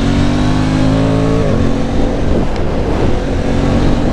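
Aprilia Tuono 660 Factory's parallel-twin engine on its stock exhaust, pulling under acceleration with its pitch climbing, dropping suddenly about a second and a half in at a gear change, then climbing again. Wind rushes over the helmet microphone throughout.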